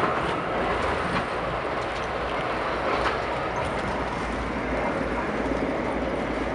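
Steady running noise inside a VIA Rail LRC passenger coach travelling at speed, with faint irregular ticks over the wheel-and-rail noise.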